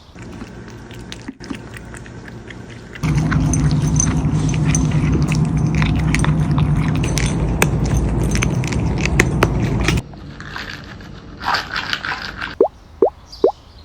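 Cat crunching freeze-dried cube treats close to the microphone: a dense run of crisp crunching clicks over a steady low hum, loudest through the middle. Near the end come a few quick rising cartoon-like sound effects.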